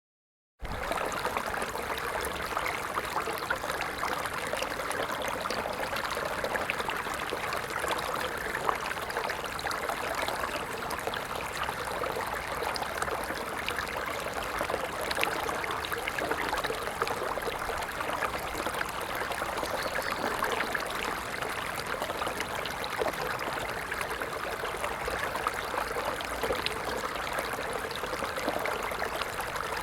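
Water of a small stream running, a steady rushing noise that comes in after a moment of dead silence about half a second in.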